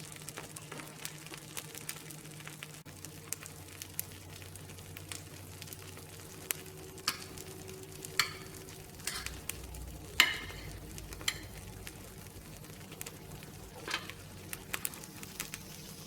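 Uthappam batter with onions frying on a hot pan: a steady, soft sizzle of fine crackles, with a few louder clicks scattered through it.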